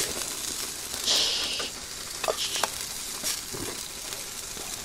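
Food sizzling steadily over a charcoal stove, with a brighter short hiss about a second in. A few light knocks of aluminium cooking pots being handled as vegetables are tipped from one pot into another.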